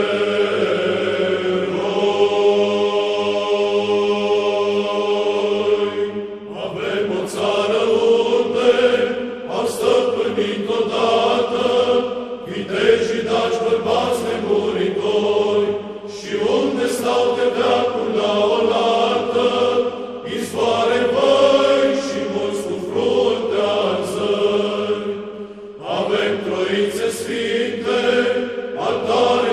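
Choir chanting as music: a long held chord for the first few seconds, then chanted phrases.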